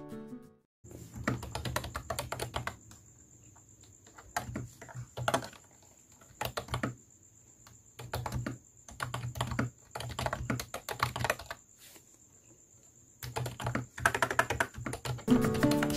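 Typing on a computer keyboard in quick bursts of key clicks separated by short pauses, over a faint steady high-pitched whine.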